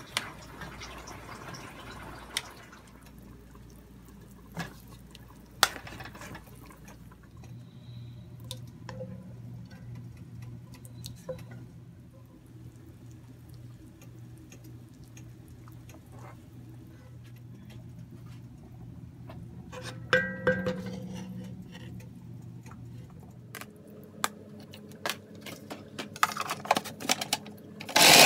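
A metal ladle skimming foam off a pot of simmering broth: scattered clinks of the ladle against the pot and the bowl, with liquid dripping and pouring. There is a louder ringing clank about twenty seconds in.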